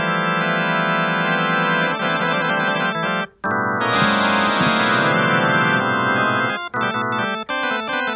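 Keyboard music, organ-like, playing long sustained chords. The sound drops out briefly about three seconds in, then a fuller chord comes in, and the chords change more quickly near the end.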